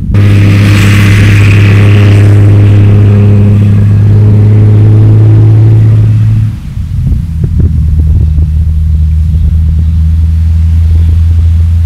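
A loud, steady low hum with a few evenly spaced overtones. About six and a half seconds in it briefly dips, then gives way to a slightly lower steady hum.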